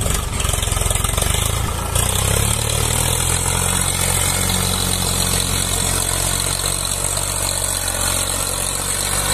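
Swaraj 744 FE tractor's three-cylinder diesel engine working under load as it hauls a loaded trailer up out of mud. Its note steps up about two seconds in and then holds steady.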